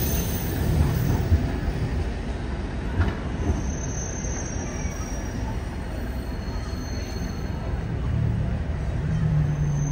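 Fukui Railway 880-series articulated tram moving off along the street track and rounding a curve: a steady low rumble of wheels on rail, with a faint high wheel squeal on the curve in the middle. A low steady hum comes in near the end.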